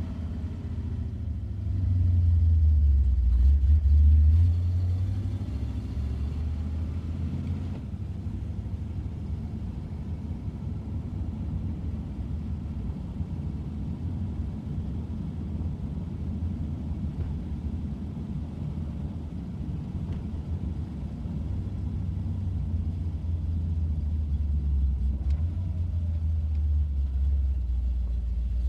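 Ford Mustang engine running with a deep, low rumble: louder for a couple of seconds near the start, then steady, and swelling again near the end.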